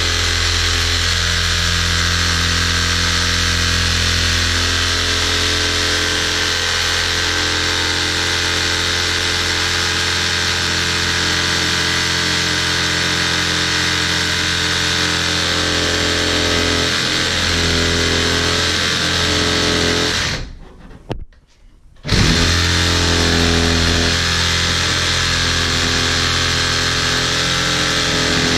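Reciprocating saw (Sawzall) running steadily as its blade cuts through the pipe hub of an old shower valve. It stops for about a second and a half near the end, then starts cutting again.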